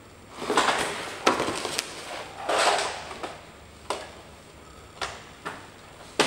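Cardboard box scraping and rustling as a hard-plastic Bruder Claas Xerion 5000 toy tractor is pulled out of it, then several sharp knocks as the plastic toy is turned over and set down on its wheels.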